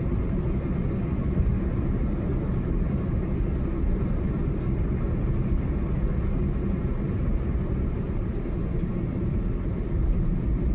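Car driving on a highway: a steady, even rumble of road and engine noise, mostly low in pitch.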